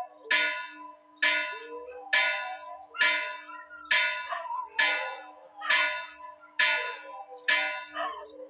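Church bell tolling in quick, even strokes, nine strikes at a little under one a second, each ringing on into the next over a steady hum. The strokes stop near the end.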